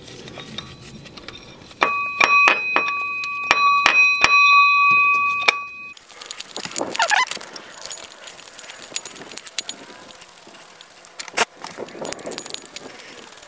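Small metal clicks and clinks of bolts and tools being handled at the water pump pulley. A steady high two-note ringing tone sounds for a few seconds in the first half, then cuts off abruptly.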